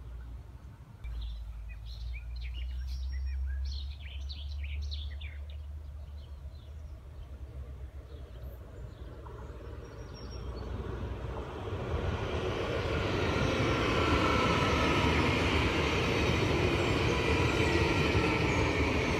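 Birds chirping briefly over a low rumble, then a VIRM double-deck electric multiple-unit train approaching and rolling past, its noise growing from about halfway through and staying loud to the end.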